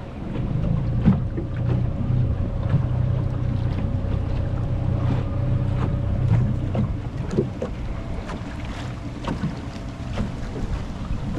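Small outboard motor on a wooden skiff running steadily at low speed, a low even hum that eases a little in the second half; the engine has new spark plugs and runs smoothly. Wind buffets the microphone, with a few light knocks.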